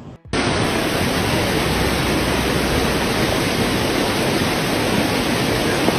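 Floodwater rushing, a steady loud noise that cuts in abruptly just after a brief dropout at the start.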